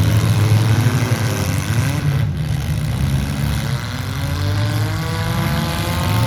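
Demolition derby cars' engines revving, their pitch climbing and falling repeatedly over a steady low engine rumble.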